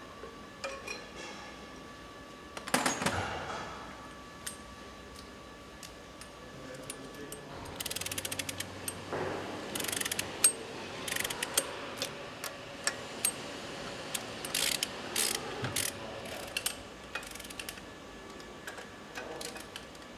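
Hand ratchet wrench clicking in quick runs as bolts are turned, with a sharp metal clank about three seconds in and more clanks of tools on steel in between.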